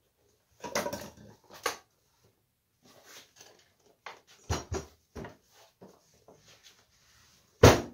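Rustling of a cloth spread over a wooden workbench and irregular knocks from handling a small wooden rocking chair, with a deeper thump about halfway through. Near the end a sharp, loud knock as the chair is set down on the bench.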